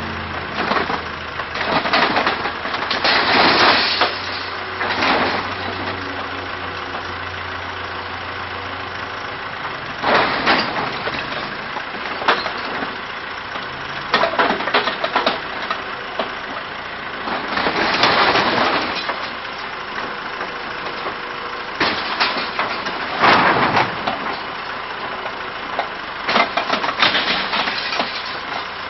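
A backhoe's engine running underneath repeated loud crunching, cracking and splintering as its arm tears apart a mobile home's frame and panels, the structure giving way in several separate breaks.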